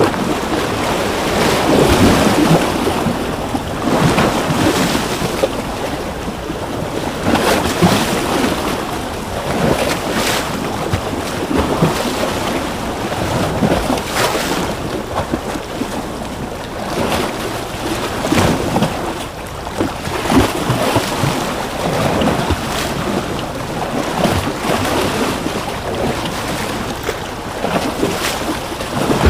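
Ocean waves breaking and washing in, a steady surf noise that swells and falls every second or two.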